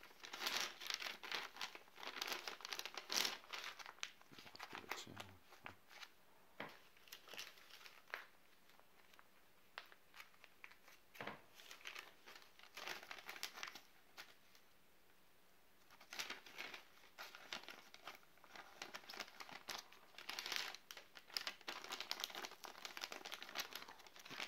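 Plastic MRE packaging, the ration pouch and flameless ration heater bag, crinkling and rustling in irregular bursts as it is handled, with a brief lull a little past halfway.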